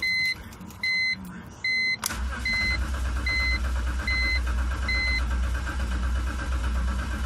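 A dashboard warning chime beeps steadily, about once every three-quarters of a second. About two seconds in, the starter engages with a click and cranks the 2005 BMW 325i's straight-six steadily without it firing, while the chime carries on more faintly and then stops. This is a crank-no-start, traced to two blown 20-amp fuses after a battery replacement.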